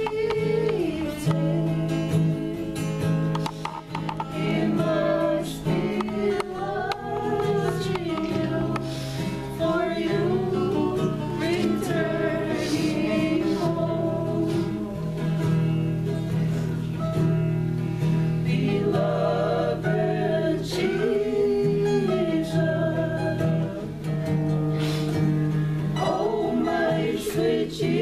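A small group of men's and women's voices singing a hymn together, accompanied by a strummed acoustic guitar.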